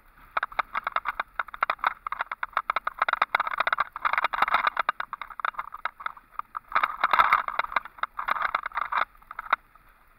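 Dense, irregular rattling clatter with a couple of short lulls, heard from a moving vehicle, stopping about half a second before the end.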